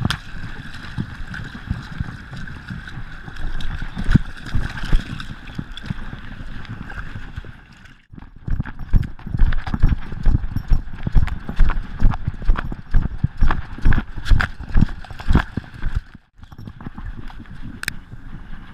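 Gordon Setter galloping, heard from a camera on her collar: the camera jolts with each stride in a fast, regular thudding, splashing through shallow water at first and then pounding across firm sand. The thuds are loudest and most even in the middle stretch and soften near the end.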